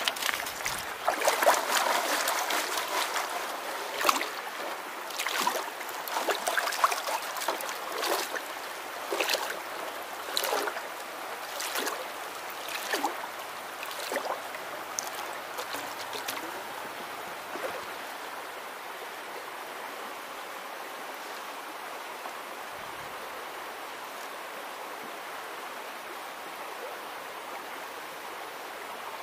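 Gold pan being worked under shallow stream water, with repeated splashes and sloshing and gravel rattling in the pan for about the first seventeen seconds. After that only the steady running of the stream remains.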